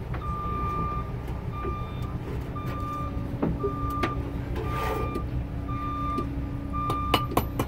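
Blacksmith's hammer striking steel on the anvil: a few scattered blows, then a quick run of ringing strikes, about four a second, near the end. Under it an electronic beep repeats about once a second over a steady low hum.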